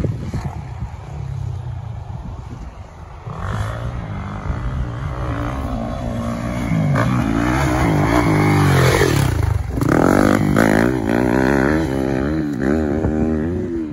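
Dirt bike engine revving up and down repeatedly as it is ridden, louder in the second half as it comes close.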